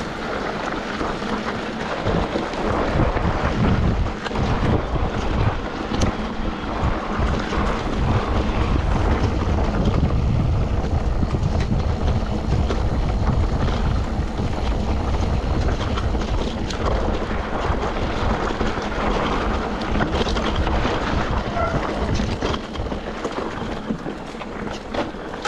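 Wind buffeting the microphone: a heavy, gusting rumble over a steady rushing noise, with a few scattered clicks.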